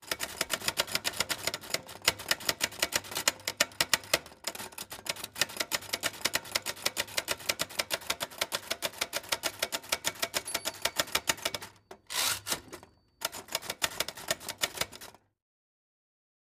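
Typewriter sound effect: a rapid run of key strikes with a short pause about four seconds in. A brief rushing sound comes about twelve seconds in, then a last run of strikes stops shortly before the end.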